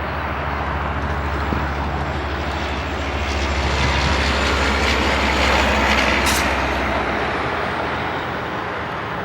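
A vehicle engine's low, steady hum that grows louder toward the middle and fades away after about seven seconds, like a vehicle passing by. There is a short sharp click about six seconds in.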